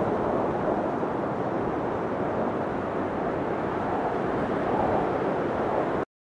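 Wind buffeting an outdoor microphone, a steady rushing noise that cuts off suddenly about six seconds in.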